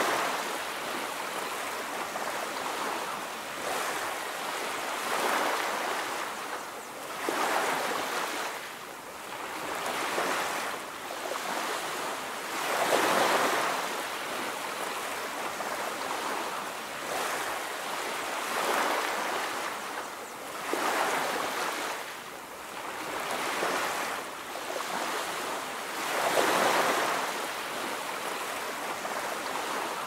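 Sea waves washing onto a beach, each wave swelling up and fading away every few seconds in an uneven rhythm.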